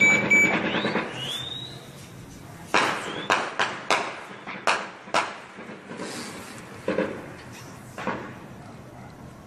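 Distant gunfire in a heavy shootout: about nine single shots at irregular spacing, each echoing, most of them bunched between about three and five seconds in. At the start, an electronic beeping is heard briefly.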